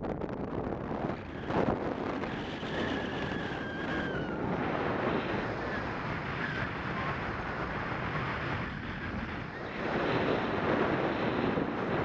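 Wind rushing over the microphone of a paraglider in flight, a steady noise that grows louder again near the end. A faint high whistle is heard briefly about three seconds in.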